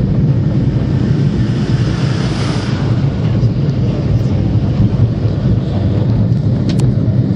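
Great Orme Tramway's cable-hauled tramcar running on its rails, heard from on board: a steady low rumble, with a brief hissing swell about two to three seconds in.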